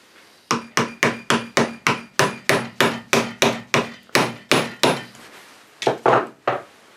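Quick hammer blows on a steel punch, about three or four a second with a metallic ring, driving the wedge home in a new wooden handle fitted to an antique hammer head held in a vise. After a brief pause near the end come three more blows.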